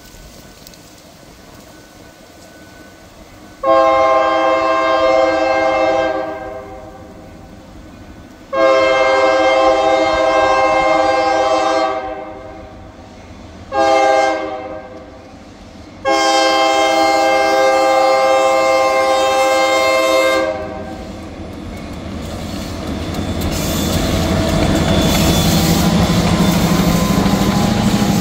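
Escanaba & Lake Superior diesel locomotive's air horn sounding the grade-crossing signal: two long blasts, a short one, then a long one. After the last blast the train's low rumble grows louder as it nears the crossing.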